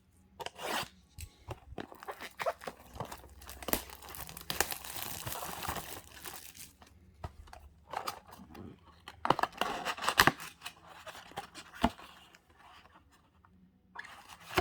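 Packaging of a trading-card blaster box being torn and crinkled open by hand: irregular tearing and crumpling with sharp snaps and clicks, the loudest snaps about nine to ten seconds in.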